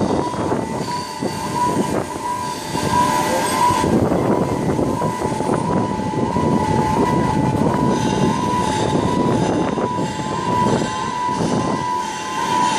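A shipyard gantry crane's warning siren warbling continuously, flipping back and forth between two close pitches, over a steady rumble of machinery.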